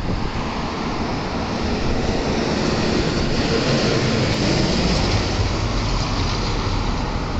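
Steady noise of road traffic going by on a street.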